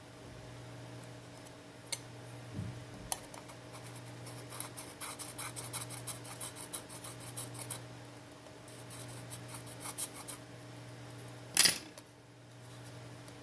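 Quick, repeated scraping strokes, about four or five a second, of a tool working leftover glass and adhesive off a smartphone's display frame, with one sharp click near the end. A steady low hum runs underneath.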